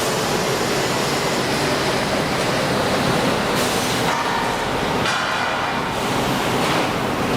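Plywood edge trimming saw running: a loud, steady machine noise with a brief ringing tone about five seconds in.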